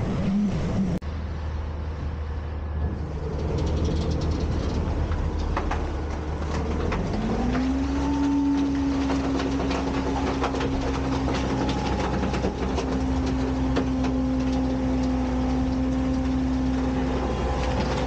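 Front-loader garbage truck's diesel engine running, then revving up about seven seconds in and holding a steady higher note as it powers the hydraulic arms lifting a dumpster overhead. Metal clanks and rattles from the lifted bin throughout.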